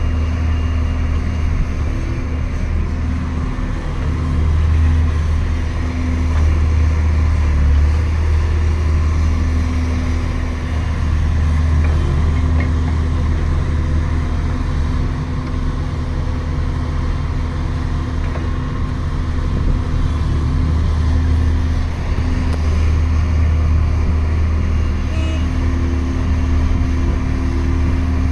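2003 JCB JS145 wheeled excavator's diesel engine running steadily, a low drone that swells slightly now and then.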